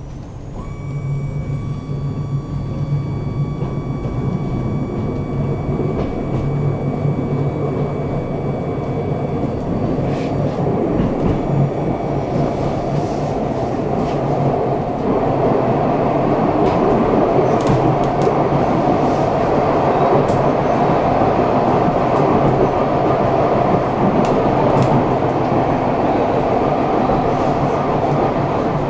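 Electric tram heard from inside the passenger car as it pulls away and gathers speed. For the first ten seconds or so there is a whine of steady high tones over a low hum from the electric drive. Then the wheels rolling on the rails grow louder, with a few sharp clicks over the rail joints.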